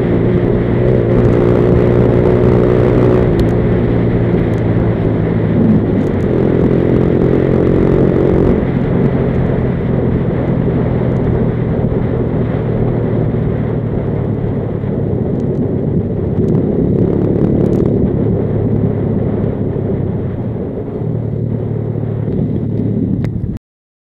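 Junak motorcycle engine running under way, its pitch shifting a few times, mixed with wind and road rumble. It cuts off suddenly near the end.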